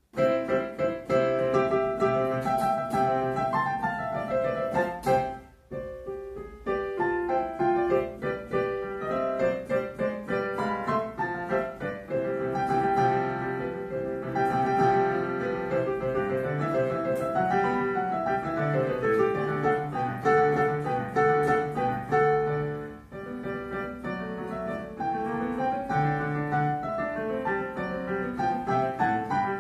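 Piano playing a piece with many sustained, overlapping notes, with brief breaks in the playing about five and a half and twenty-three seconds in.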